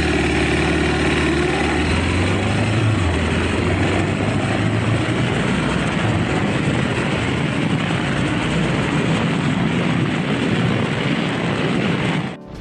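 Triumph Scrambler 900's parallel-twin engine pulling away and running at speed, under heavy wind rush on the microphone. The sound cuts off sharply near the end.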